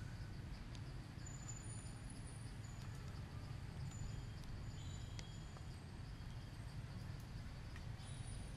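Faint outdoor ambience: a steady insect drone with short, thin, high chirps now and then, over a low rumble.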